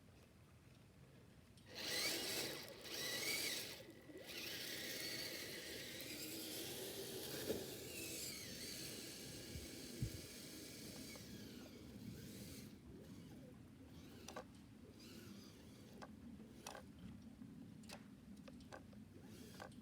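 Electric drive motor and gearbox of a Kyosho Blizzard RC tracked snow vehicle whirring. It gives two short bursts, then runs steadily for several seconds, then drops to a quieter level with scattered clicks.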